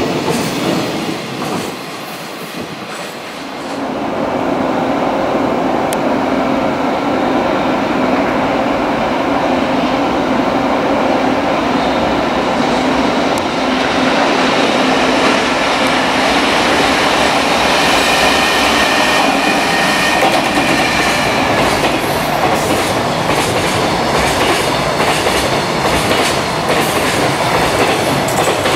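Freight trains running through at speed. The last container wagons of one train pass and fade. Then a JR Freight EF210 electric locomotive and its container wagons rush past, wheels clattering over the rail joints, with a steady hum and, for a few seconds past the middle, a higher ringing whine.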